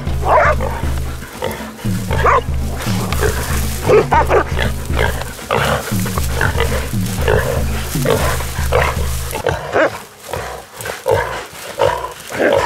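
Background music with a repeating bass line over a caught wild boar squealing. The music stops about nine and a half seconds in, leaving the pig's calls.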